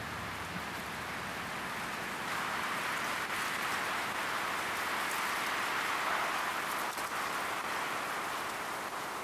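Wind gusting through the trees, an even hiss that swells about two seconds in and eases near the end.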